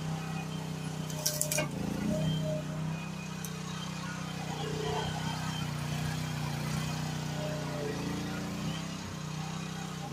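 Groundhog KH14G mini excavator's engine running steadily while the machine works its boom and swings around with a rake attachment. One sharp crack about a second and a half in.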